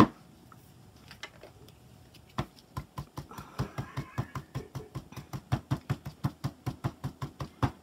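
Bingo dauber bottle dabbed quickly onto paper: a steady run of soft taps, about five a second, starting a couple of seconds in. A single sharp click comes at the very start.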